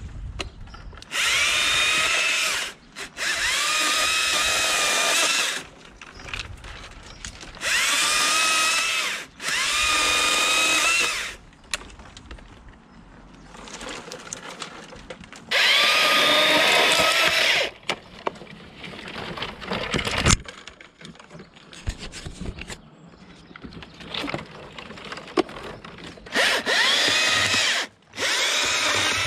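Stihl chainsaw cutting apple tree leaders in about seven short runs of one to three seconds, each starting with a rising whine that then holds steady. The saw goes quiet between cuts, with a sharp click about twenty seconds in.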